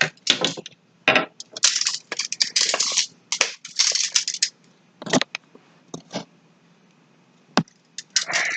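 Irregular rustling, crinkling and light clicks and knocks of materials being handled on a table, in short clusters with brief pauses between.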